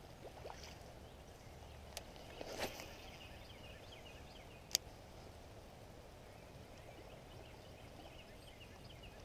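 Quiet outdoor pond-side ambience with faint distant birds calling on and off, broken by a brief rustle and a couple of sharp single clicks.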